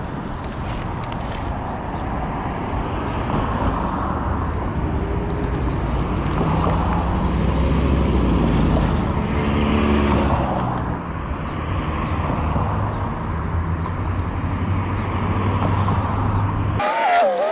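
Steady low rumble of road traffic and vehicle engines, with faint distant voices around the middle. The rumble cuts off abruptly near the end.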